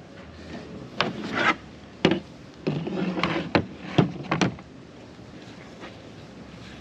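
A plastic cutting board and a wooden rolling pin being set down and slid into place on a table: a series of knocks and scrapes.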